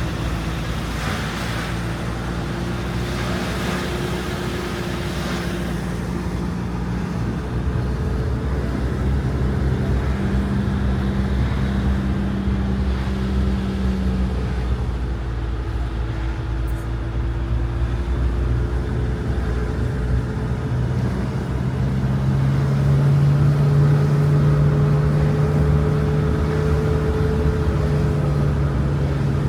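A motor vehicle driving: a steady engine drone over road noise. The engine note shifts slowly with speed, rising and getting louder about 22 seconds in.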